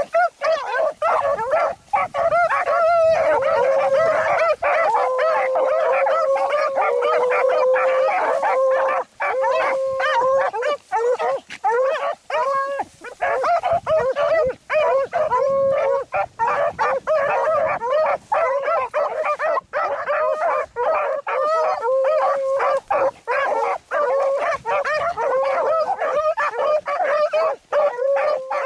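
Several beagles baying together as they run a rabbit's scent through cover. Their long, overlapping cries keep up almost without a break.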